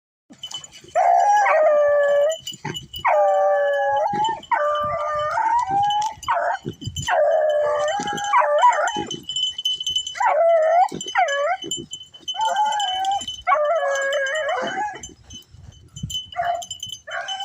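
Pack of rabbit-hunting hounds baying, several voices giving long, overlapping drawn-out calls, the bay of hounds working a scent line. The calls thin to a few short ones near the end, over a steady faint high-pitched tone.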